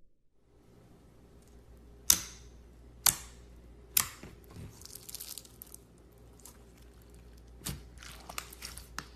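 Slime being pressed and squeezed by hand. Three sharp pops come about a second apart, with crackling and crinkling between them and a few smaller pops near the end.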